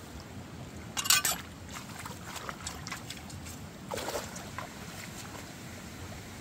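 Shallow stream water splashing and sloshing as hands work in it, over a steady hiss. The loudest splash comes about a second in, with smaller ones later and another cluster around four seconds in.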